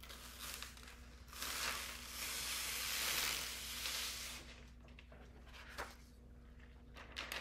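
A rhinestone transfer sheet being handled, rustling and peeling for about three seconds starting a second in, followed by a couple of light clicks.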